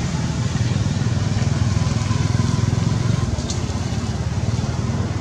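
A steady low rumble with a fast flutter.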